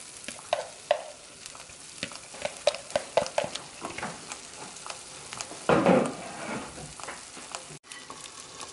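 Kuymak of cornmeal, butter and melting cheese sizzling in a frying pan, with many scattered small pops as bubbles burst through the thick mixture. The butter has risen to the top and the bottom is starting to crisp. A louder burst of noise comes about six seconds in.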